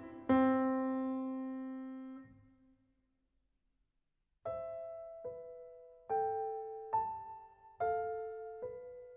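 Closing-credits piano music. A chord rings out and fades away, followed by about a second and a half of silence. Then a slow tune of struck piano notes begins, about one note a second.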